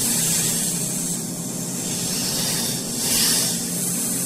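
Steady hissing noise that swells briefly about three seconds in.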